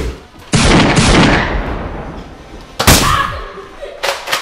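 Loud gunshot sound effects: two booming shots about two seconds apart, each with a long echoing tail, then two quick sharp shots near the end.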